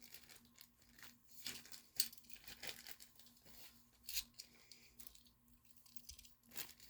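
Plastic packaging crinkling and crackling as it is handled, in short irregular bursts, with sharper crackles about two, four and six and a half seconds in.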